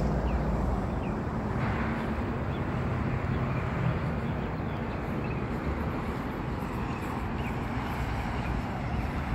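Steady low outdoor rumble with faint short high chirps now and then.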